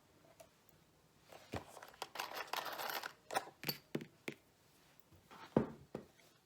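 Hands handling the mounting supplies: a run of rustling and crinkling with small clicks and taps, then a single sharper knock near the end.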